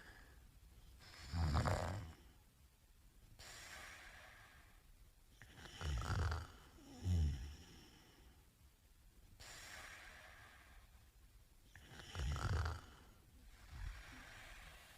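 A man snoring in his sleep: loud buzzing snores about a second and a half in, a pair close together around six and seven seconds, and another near twelve seconds, with softer breaths between.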